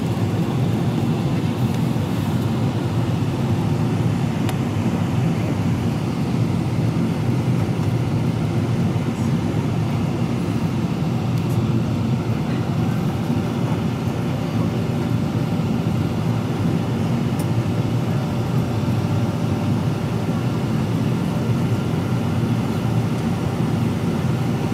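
Steady drone of a Boeing 777-300ER airliner heard inside the cabin during descent: engine and airflow noise, low and even, with no change in level.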